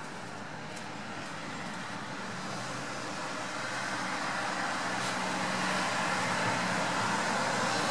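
A car approaching along a wet street, its tyre hiss on the wet road growing steadily louder as it comes closer.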